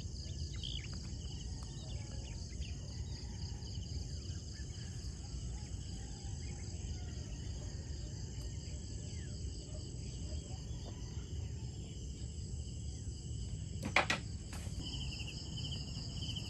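Insects trilling steadily in two pulsing high-pitched bands over a low rumble, with one short sharp click about fourteen seconds in.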